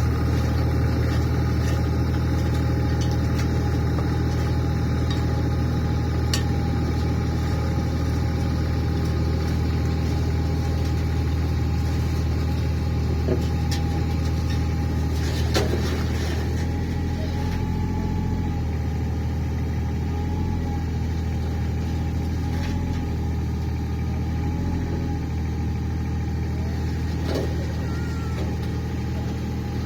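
A 3-tonne excavator's diesel engine running steadily under load, with a few short sharp knocks over the top.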